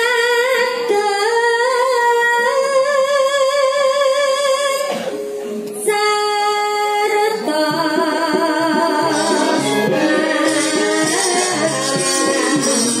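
A Javanese sinden's solo voice sings long held notes with vibrato through a PA, with a short break midway. About seven seconds in, the gamelan ensemble comes in behind her.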